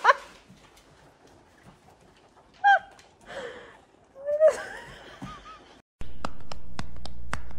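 A few short, pitched animal calls that bend up and down, from the dog or cat in a kitchen. About six seconds in, the sound switches abruptly to regular ticks, about four a second, over a steady low hum.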